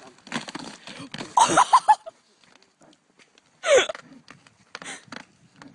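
Footsteps crunching on a slushy, thin-iced puddle, with short loud vocal bursts from a person about a second and a half in and a single falling cry near four seconds.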